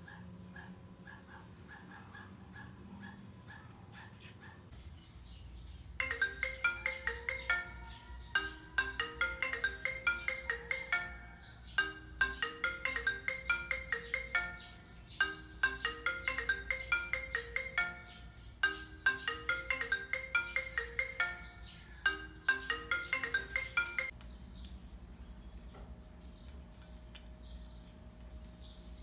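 Background music: a short, bright melody of quick notes, repeated over and over. It starts about six seconds in and stops a few seconds before the end, with only faint sound around it.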